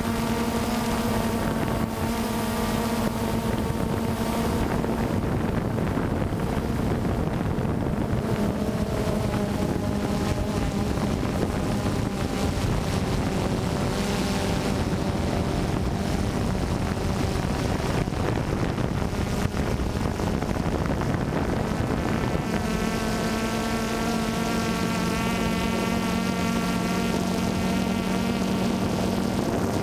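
DJI Phantom 2 quadcopter's motors and propellers running with a steady whirring hum, picked up by the onboard camera with wind noise on the microphone. The pitch shifts around the middle and again about three-quarters through.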